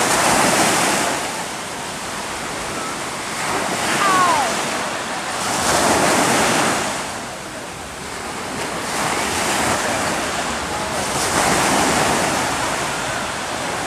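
Ocean surf breaking and washing ashore, swelling and fading again every two to three seconds as each wave comes in.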